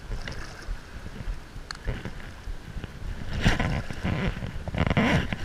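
Wind buffeting the microphone over the sound of water, with louder sloshing and splashing from about three seconds in as a hooked fish is fought in the shallows.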